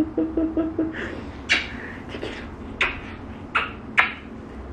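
A woman gives a short giggle, then makes a few short, sharp kissing smacks about a second apart.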